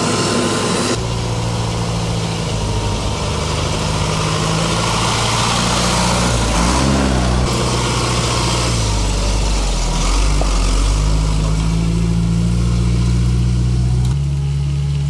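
Diesel engines of snow-clearing machines running, a snowplough truck with a front blade among them, the engine pitch shifting up and down as they work. The engine sound changes abruptly about a second in and again near the end.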